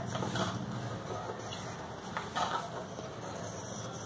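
Knife scraping and tapping lightly against the side of an aluminium baking tin as it loosens the edges of a steamed dhokla, a few faint scrapes over a steady low hum.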